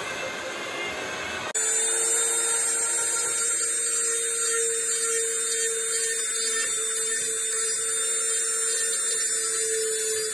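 A heat gun blows with an even rush for the first second and a half. Then a handheld rotary tool takes over with a steady high whine, its burr cutting a finger hole in a ney's reed body.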